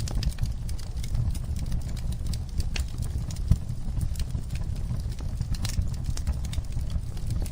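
Fireplace fire crackling: irregular sharp snaps and pops over a steady low rumble of flames, with one louder pop about three and a half seconds in.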